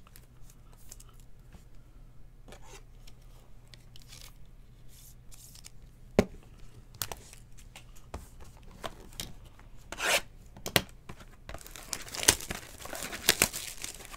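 Trading cards and plastic card sleeves handled with light clicks and rustles, and a sharp tap about six seconds in. Over the last few seconds a foil card-pack wrapper is torn open and crinkled; this is the loudest part.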